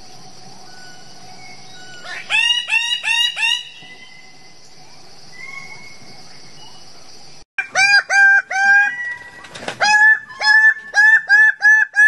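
Birds-of-paradise (Paradisaea) giving loud, harsh, repeated calls. There are four in quick succession about two seconds in, then a longer run of about a dozen from halfway on. A steady high hiss runs under the first half and stops abruptly.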